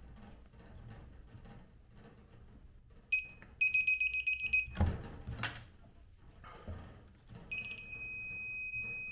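Electronic torque wrench beeping as a nut is torqued down. A short high beep, then about a second of rapid beeping, a couple of metal knocks, and near the end a steady tone held for about two seconds, signalling that the set torque of 64 newton metres has been reached.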